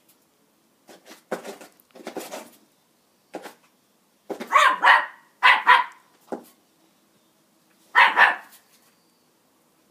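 A border terrier barks at a broom lying on the ground, giving about a dozen sharp barks in irregular bursts of one or two. The barks are fainter for the first few seconds and loudest from about four seconds in and again near the end.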